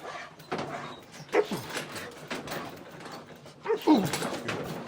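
A young working dog whining and yelping in short cries that fall in pitch, one about a second in and a louder pair near the end, with scuffling between them. It is vocalizing out of arousal and conflict while it is worked on the bite, in anticipation of the out.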